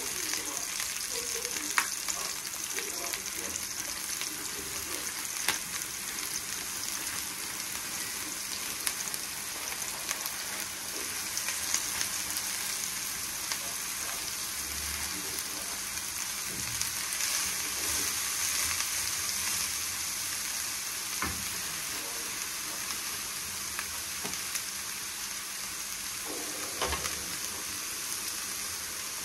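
Sliced red onions sizzling in hot oil in a non-stick frying pan, with a wooden spatula stirring and now and then clicking against the pan. About halfway through, shredded cabbage is tipped in on top, and the steady sizzle carries on.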